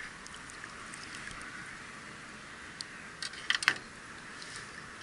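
A steady hiss, then about three and a half seconds in a short cluster of sharp clicks and rustles from handling a landing net with a freshly caught roach in it.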